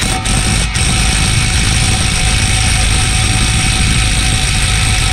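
Impact wrench hammering continuously on a staked front axle nut, breaking it loose and backing it out. The sound is loud and steady, with a thin whine over a heavy rattle.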